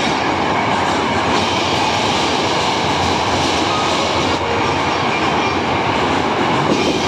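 A Hankyu electric train passing non-stop through an underground station at speed. Its wheels on the rails make a loud, steady running noise, held in by the station box.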